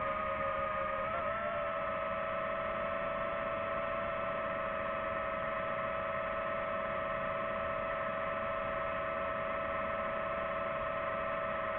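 Quadcopter drone's electric motors and propellers whining steadily while hovering, with a brief wobble and small rise in pitch about a second in.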